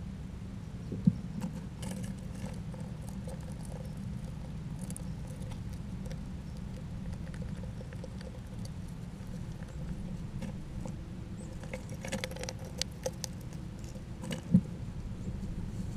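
Small rodents scrabbling and pattering at a feeder: scattered light clicks and scratches, a flurry of them near the end, with two sharper knocks, one about a second in and one just before the end, over a steady low background rumble.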